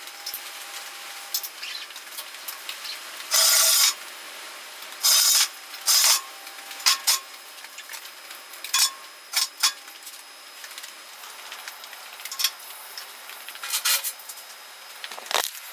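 Intermittent clinks, scrapes and rattles of metal parts and hand tools being handled during assembly, with a few louder half-second bursts of scraping.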